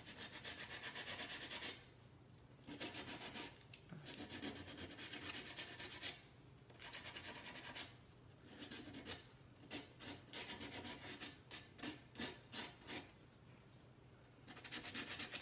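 Hand sanding of a cured Kwik Wood epoxy patch on a wooden drawer corner with a sanding block, smoothing it flush with the drawer. Soft, dry rubbing comes in several bouts of strokes broken by short pauses, with quicker back-and-forth strokes in the second half.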